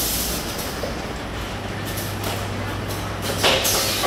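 Factory-floor din of running filter-production machines: a steady low hum under constant machine noise, with a short burst of hiss about three and a half seconds in.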